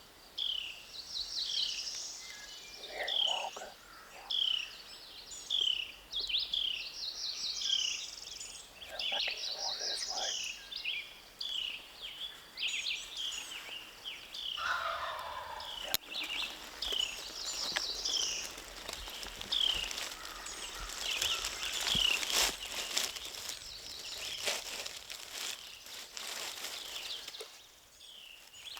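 Wild turkey gobbler gobbling a few times from down the slope, over a steady chorus of songbirds repeating short high notes. In the later part, scattered clicks and rustling.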